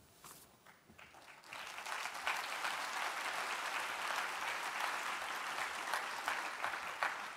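Audience applauding: the clapping starts about a second and a half in, holds steady, and dies away near the end.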